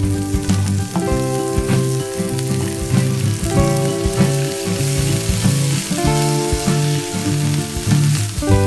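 Bean sprouts and vegetables sizzling and being stirred as they stir-fry in a hot pan, with background music of held chords and a repeating bass line playing over it.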